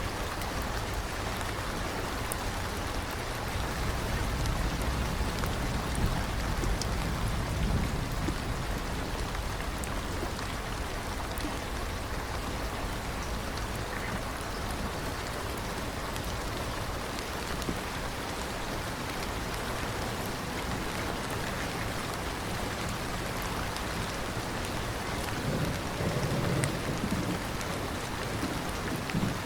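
Steady rain falling, with two low rumbles of thunder, one a few seconds in and one near the end.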